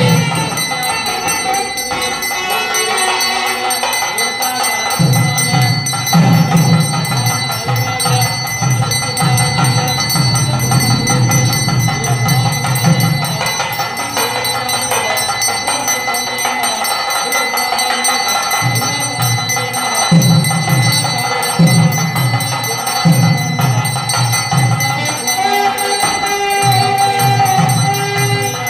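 A male priest chanting mantras in phrases of a few seconds, over the continuous ringing of a brass hand bell.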